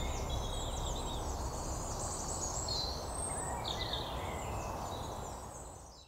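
Woodland birdsong: several small birds chirping and trilling at once over a low, steady background rumble. It fades out in the last second.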